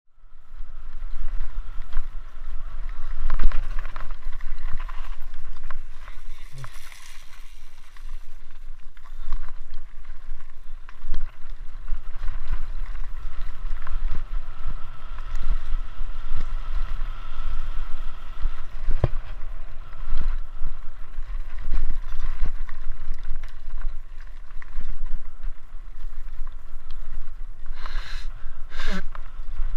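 Mountain bike riding fast down a rough gravel trail, heard from a camera on the bike or rider: a steady rumble of tyres and wind on the microphone, with rattles and knocks from bumps. Two short, sharper sounds come near the end, the second falling in pitch.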